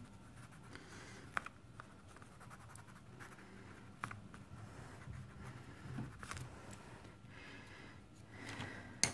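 Faint scratching of a colored pencil shading on a paper page, with a few small clicks.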